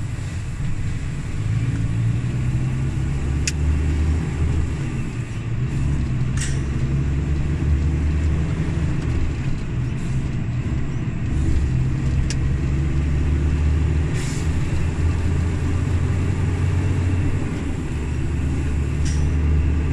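Volvo FH460's diesel engine running under way, heard from inside the cab as a loud, low drone whose pitch steps up and down several times. A few brief sharp clicks or rattles sound over it.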